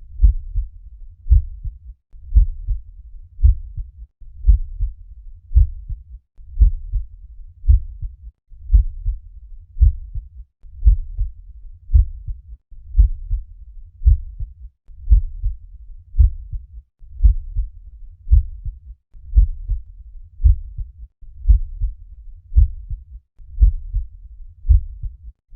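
Heart sounds through a stethoscope: a regular low beat about once a second, with a low, noisy rumble filling the gaps between beats.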